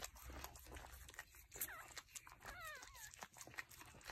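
Newborn puppies giving a couple of short, high squeaks that rise and fall, over soft wet licking and smacking clicks from the mother cocker spaniel licking and eating the birth sac off a newborn.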